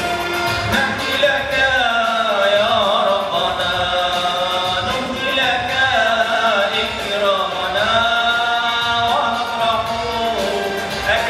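A solo male voice, amplified through a microphone, chanting an Arabic Orthodox hymn in long held notes with wavering ornaments on the pitch.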